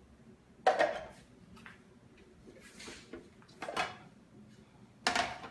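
Kitchen things being handled around a food processor: several sharp knocks and clatters, the loudest about a second in, with no motor running.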